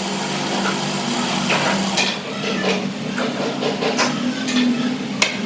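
Steady workshop machine hum, with sharp knocks and taps scattered through it, about three of them standing out.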